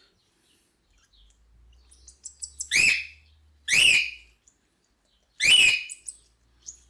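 Hand-fed cockatiel chick giving loud, rasping food-begging calls, three in a row, each rising and falling in pitch: its feeding reaction while being hand-fed.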